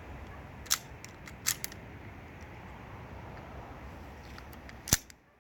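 Sharp clicks from a CO2 airsoft pistol being worked and fired: two about a second in, a third soon after, and a louder crack near the end. The gun is running badly, which the owner puts down to the cold.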